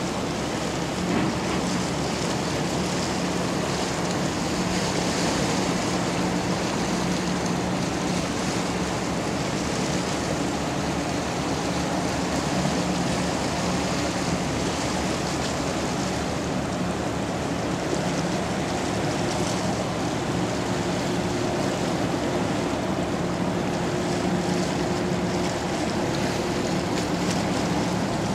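Steady low diesel drone of a large cargo ship under way, over the rushing wash of water along its hull and bow wave, with some wind noise on the microphone.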